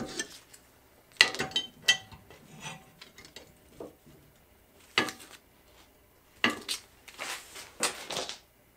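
Metal clanking of two large adjustable wrenches knocking against each other and against a steel bar held in a bench vise as the bar is levered over into a bend. It comes as several short runs of clanks and rattles, the first a little over a second in, another around five seconds, and a longer run near the end.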